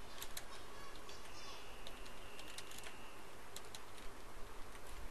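Computer keyboard being typed on: scattered, irregular key clicks in short runs.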